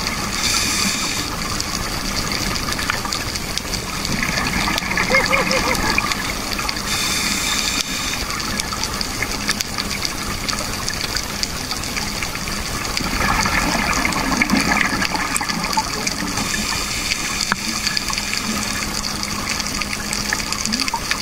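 Scuba divers' exhaled air bubbles rushing and gurgling underwater in irregular bursts a few seconds apart, over a steady underwater hiss.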